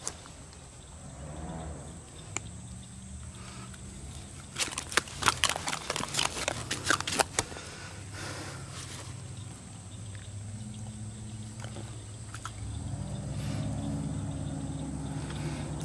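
A quick run of sharp metal clicks and rattles for about three seconds, from pliers working a fish hook free of a bowfin's toothy mouth, over a low steady hum.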